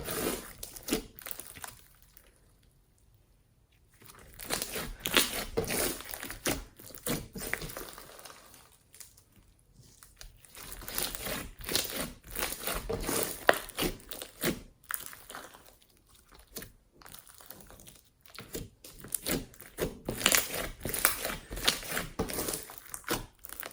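Slime being squished and kneaded by hand: a dense run of sticky clicks, crackles and small air pops, pausing for about two seconds early in the stretch and again briefly around the middle.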